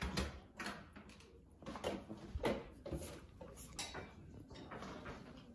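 Scattered light clicks and taps at an uneven pace: a Pomeranian's claws and paws on a wooden floor.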